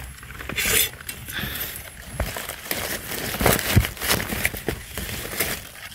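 Dry leaf litter and leafy plants rustling and crackling in irregular bursts as a hand pushes through the forest floor vegetation to pick a mushroom.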